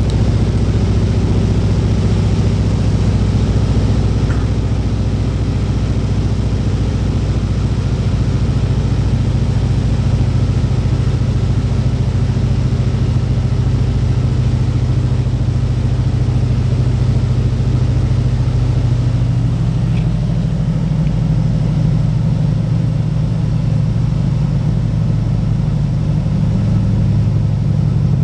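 Floatplane's engine and propeller droning steadily, heard inside the cockpit during the approach and landing on water. The engine note changes about twenty seconds in.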